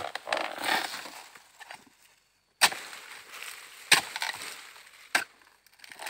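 A dodos, the long-poled chisel used to harvest oil palms, chopping into the stalks at the base of an oil palm crown. There are four sharp strikes, about a second apart after a longer gap, with a second of rustling after the first.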